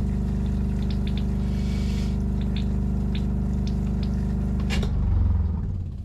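RV toilet flushing, water swirling into the bowl, while the trailer's 12-volt fresh-water pump runs with a steady hum. About five seconds in there is a louder rush of water as the bowl empties, and then the sound stops.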